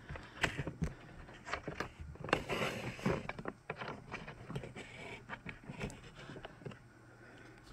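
Handling noise: rustling of plastic and paper with irregular light clicks and taps, busiest about two to three seconds in.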